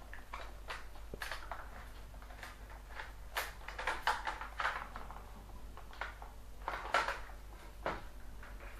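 Acer 3680 laptop's plastic case being pulled and pried at by fingers: irregular clicks and knocks as the panels flex without coming apart. A screw still in place is holding the halves together.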